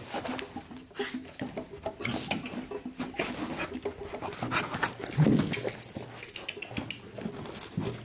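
Pest-detection beagle sniffing hard along the baseboards as it searches, in quick irregular bursts of snuffling.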